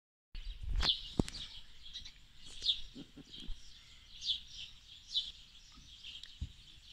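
Small birds chirping: short, high chirps that slide down in pitch, repeating every second or so. A sharp click about a second in and a dull knock near the end.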